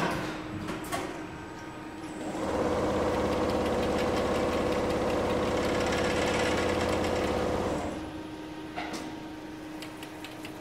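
Mammut Select VMK 250 CNC 601 multi-needle double lock chainstitch quilting machine stitching at speed: a fast, even mechanical chatter that starts about two seconds in and stops about eight seconds in. Before and after it there is a quieter steady hum with a few clicks.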